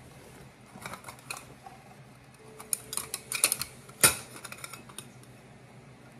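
Light metallic clicks and taps as a small round metal tin is handled and its lid worked at, with a quick run of clicks about three seconds in and one sharper click a second later.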